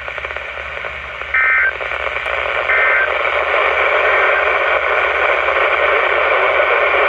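Steady loud static from a weather radio receiver on a weak signal, with two short two-tone chirps of EAS digital data about a second and a half apart, the end-of-message bursts after the warning.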